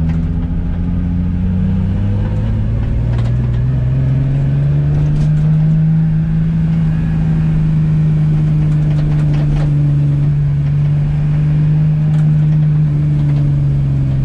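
Nissan 350Z's freshly rebuilt 3.5-litre V6 running under acceleration, its pitch rising over the first few seconds and then holding steady, easing off slightly near the end.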